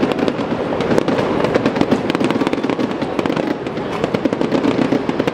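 Fireworks display: shells bursting and crackling in quick succession, a dense run of pops and crackles over a continuous low rumble.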